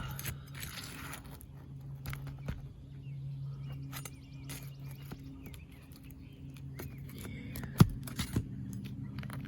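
Roofing tools scraping and clicking against asphalt shingles while a nail is worked loose. There is one sharp knock about eight seconds in and a couple of lighter ones just after. Birds chirp, and a steady low hum runs underneath.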